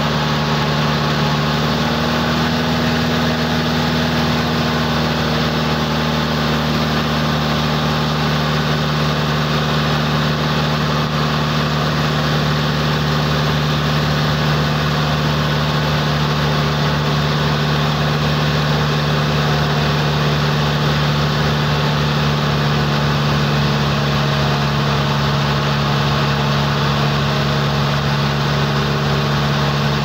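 Boat engine running at a steady pitch under way, with water rushing and splashing past the hull.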